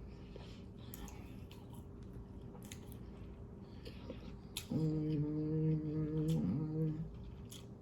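A woman chewing a chicken sandwich, with small wet mouth clicks, then about five seconds in a steady closed-mouth 'mmm' hum lasting about two seconds.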